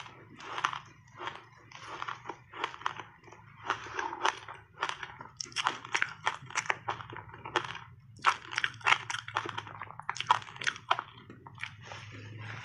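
A person biting and chewing a block of frozen passionfruit ice thickly coated in matcha powder. The ice cracks in quick runs of sharp crunches, separated by short pauses.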